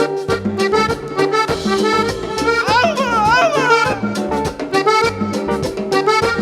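Live Latin dance band playing an instrumental passage with a steady drum beat. About three seconds in, a lead instrument plays a fast run with quick up-and-down bends.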